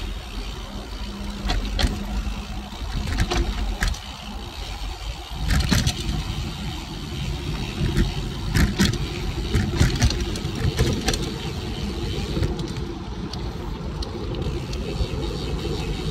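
Cervelo Aspero gravel bike on 47 mm tires riding fast down a dirt singletrack: a steady low rumble of tires on dirt and rushing air, louder from about five seconds in, with frequent sharp clicks and clatters from the bike over roots and bumps.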